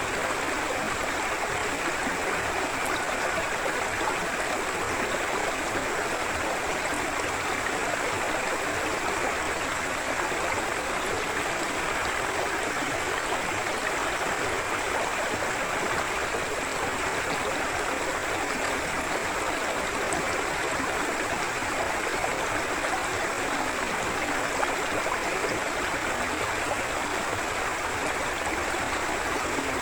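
Forest river flowing: steady rushing and gurgling water with no breaks.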